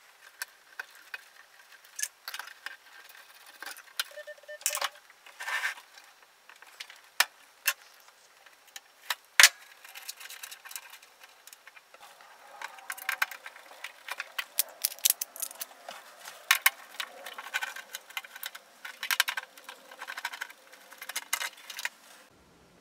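Scattered clicks, taps and light metallic rattles of hands working at the front panel of a Telwin Maxmig 150/1 Turbo MIG welder, getting its control board out. The handling gets busier about halfway through.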